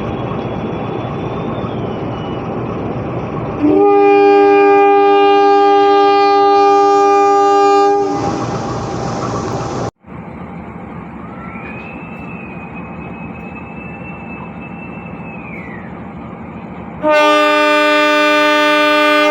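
Two long blasts from Indonesian diesel locomotive air horns sounding semboyan 35, the driver's horn signal answering the station's departure signal. Each blast is a chord of several tones. The first lasts about four seconds, and the second, from a different horn, starts near the end. A steady rumble runs beneath both.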